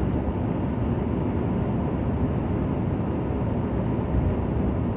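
Pickup truck driving on a highway, heard from inside the cab: a steady, low mix of engine and road noise.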